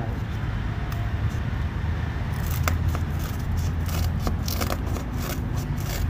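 Piece of corrugated cardboard handled close to the microphone, giving scattered scratchy rustles and clicks that start about halfway in, over a steady low hum.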